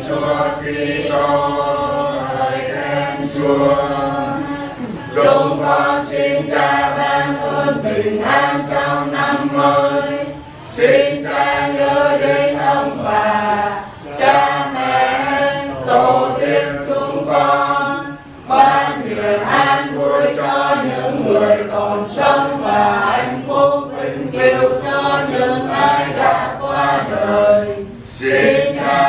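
A mixed group of men and women singing a Vietnamese Catholic hymn together, unaccompanied. Phrases break with short pauses for breath every few seconds.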